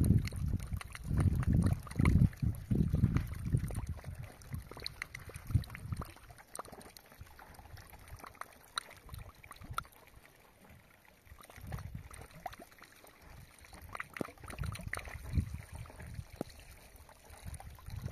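Wind gusting against the microphone as irregular low rumbles, strongest in the first few seconds, then quieter with faint scattered clicks and taps.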